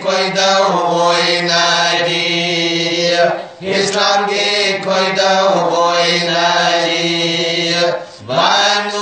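A man singing a Manipuri marifat, a Sufi devotional song, in long held, chant-like lines. He pauses for breath about three and a half seconds in and again near eight seconds.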